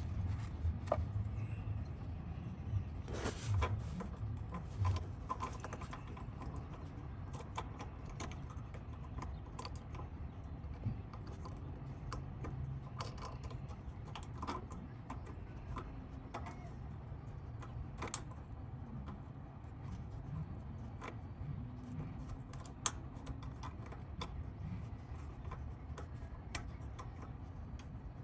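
Scattered light clicks and taps of hands handling a GY6 ignition coil and its bolt against the metal mounting bracket while it is fitted in place, with a couple of sharper clicks in the second half, over a low steady rumble.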